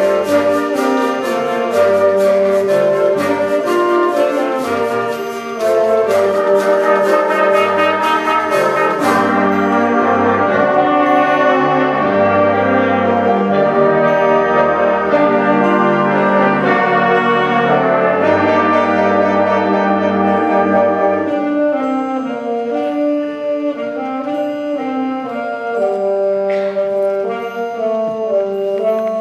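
A school wind ensemble playing: brass and woodwinds holding chords over a low bass line, with a steady percussion beat that stops about nine seconds in.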